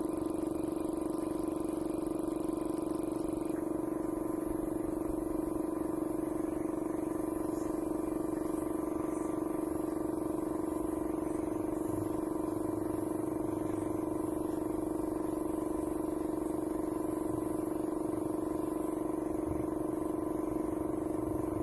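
A steady hum held on one low pitch with overtones above it, unchanging in level throughout, like an electric motor running.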